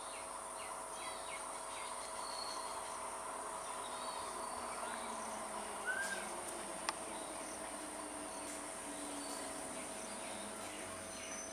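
Steady high-pitched buzzing of insects, with a few scattered bird chirps and one sharp click about seven seconds in.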